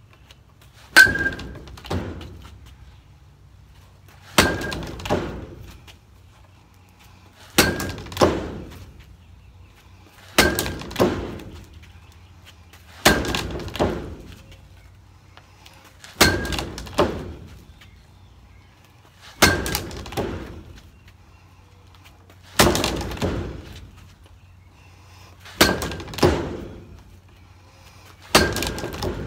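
Softball bat striking a tethered ball on a Hit-A-Way swing trainer, about ten swings roughly three seconds apart. Each hit is a sharp crack with a brief ring. About half a second later comes a second, softer knock as the ball and cord swing back around the post.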